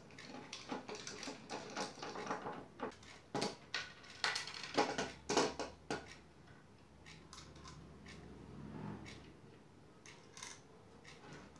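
Small steel parts clicking and clinking as they are handled and fitted together: rods set into a plate, washers and nuts picked up and placed on a wooden bench. Quick, busy clicks for about the first six seconds, then only a few scattered ones.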